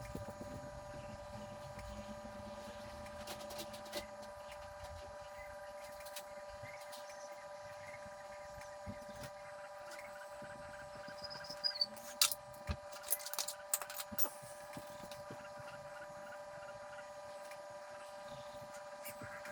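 A steady hum of several fixed pitches, with a quick run of clicks and knocks about two-thirds of the way through.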